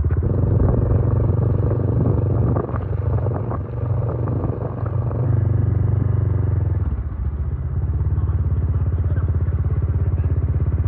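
Engine of a slow-moving vehicle running with a steady, even throb, with some clatter and knocks in the first few seconds and a brief dip about seven seconds in.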